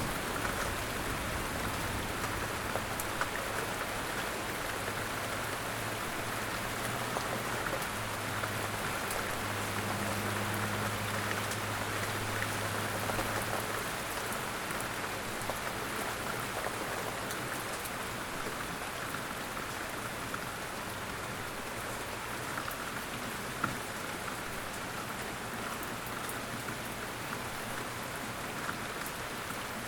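Steady outdoor rain falling on surfaces: an even hiss of rain with scattered individual drop ticks.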